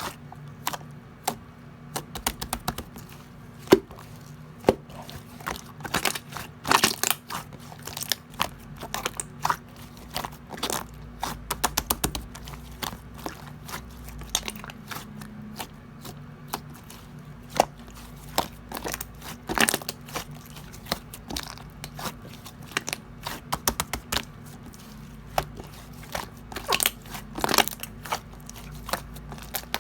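Slime being squished and stretched by hand, making many irregular sticky clicks, pops and crackles.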